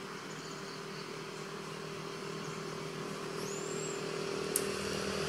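Steady hum of a motor vehicle's engine, slowly growing louder. A short high rising whistle sounds about three and a half seconds in, and a sharp click near the end.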